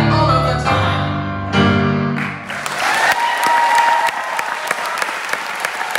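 Grand piano playing the last chords of a song, which ring out and stop a little over two seconds in. A theatre audience then breaks into applause and cheering, with sharp claps from hands close by.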